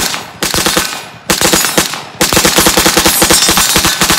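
AR-15 short-barreled rifle with a 7-inch 5.56 barrel firing rapidly: a few quick bursts of shots, then a fast, unbroken string of shots from about two seconds in.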